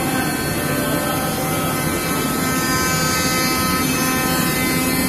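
Sinajet flatbed CNC cutting machine running as it cuts KT foam board: a steady mechanical hiss and whine of its motors, with several held tones and no breaks.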